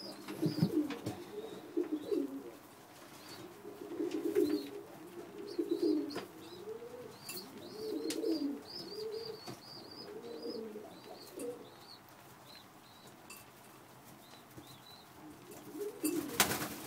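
Young Birmingham roller pigeons cooing in repeated low phrases, with high thin chirps over the top. Near the end one bird flaps its wings loudly.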